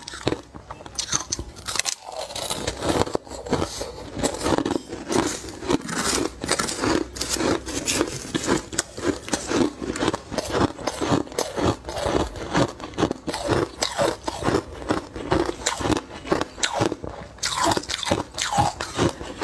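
Crushed ice being chewed close to the microphone: continuous, rapid crunching with many small cracks, easing off briefly about two seconds in.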